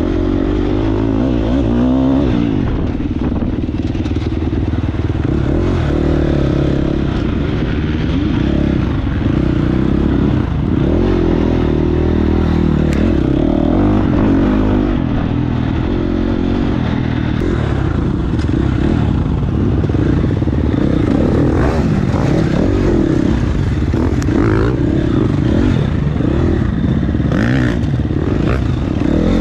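Dirt bike engine revving up and down continuously at race pace, its pitch rising and falling again and again, heard up close from the bike itself.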